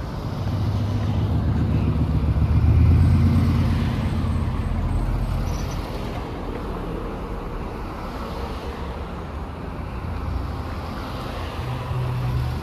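Street traffic: a motor vehicle's engine passes close by, loudest about three seconds in and then fading, over a steady hum of road noise.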